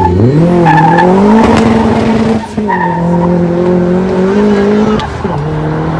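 A car engine revved hard and held at high revs while the tyres skid and squeal in a burnout or drift. The revs dip briefly about two and a half seconds in, climb again, and fall away near the end.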